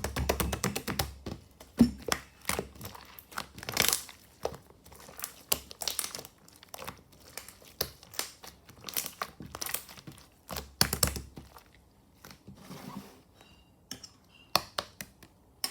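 Chewy, sticky slime being squeezed and stretched by hand, giving off dense, irregular clicks, pops and crackles, which thin out to a quieter spell a little before the end.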